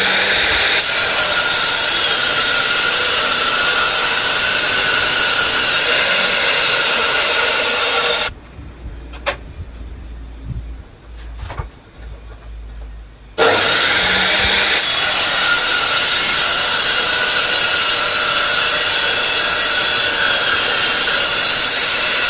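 Restored electric circular saw cutting through a wooden board with a loud, high ripping whine. It stops about eight seconds in and starts cutting again about five seconds later.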